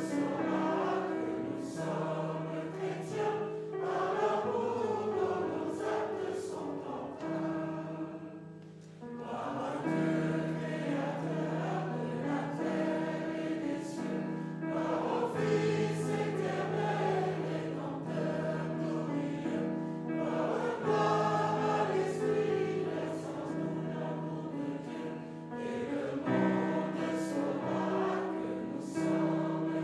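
Congregation singing a hymn together in sustained, steady notes, with a brief break between phrases about nine seconds in.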